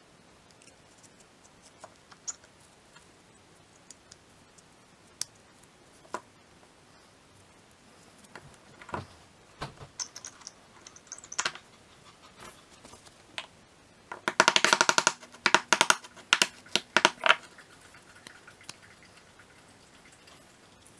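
Gloved hands handling metal power steering valve parts on a workbench: scattered light clicks and knocks, then about three seconds of rapid clicking with a ringing, metal-on-metal rattle a little past the middle.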